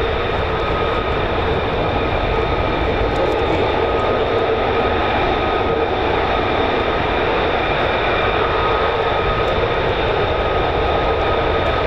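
F-35 jet engine idling: a steady rush of noise with a constant whine laid over it, level and unchanging throughout.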